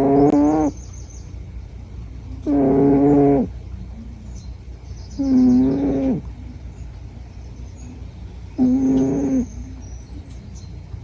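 A Scottish Fold cat snoring in her sleep: a loud, pitched snore about a second long, repeating roughly every three seconds. One snore is fading near the start and three more follow.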